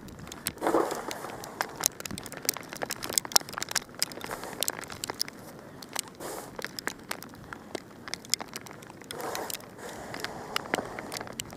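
Snow crunching and crackling: a stream of sharp, irregular clicks, with a few longer crunches about a second in, around six seconds and around nine seconds.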